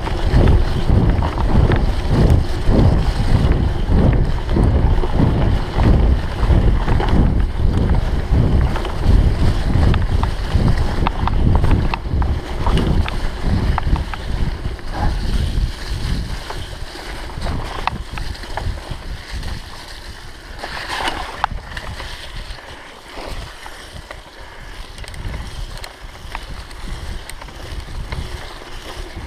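Wind buffeting the camera's microphone as a mountain bike rides fast over a forest dirt track, with the rumble and rattle of the bike over the rough ground. It is loud and gusty at first and eases off about halfway, as the ride slows.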